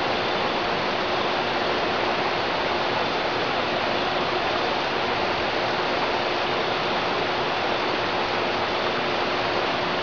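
Steady rushing of river water, an even, unbroken hiss with a faint steady hum beneath it.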